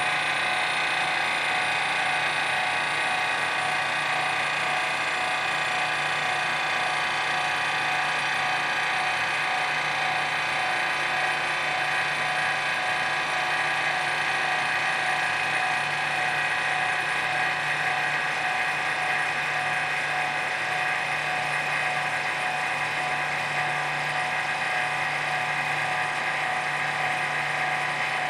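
A 5.6 CFM two-stage vacuum pump running steadily, pulling down the vacuum chamber. It makes a constant mechanical hum with a clattery edge.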